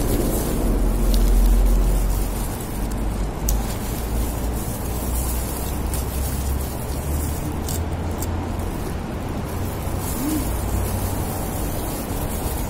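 Steady low rumble of background noise, loudest about a second in, with a few faint clicks.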